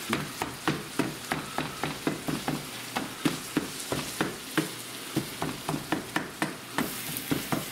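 Ground beef sizzling in a frying pan while a plastic meat-chopper tool repeatedly strikes and scrapes through it against the pan, about three or four knocks a second over a steady sizzle.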